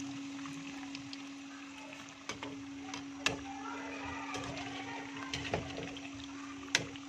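Bread chicken patties sizzling as they fry in hot oil in a kadai, over a steady low hum. A few sharp clinks, a wire spider strainer knocking against the pan, stand out, the loudest about three seconds in and near the end.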